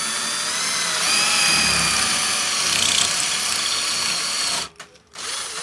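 Remax cordless drill running as it bores a hole into a wall for a wall plug, its motor whine rising slightly about a second in. It stops briefly near the end, then starts again.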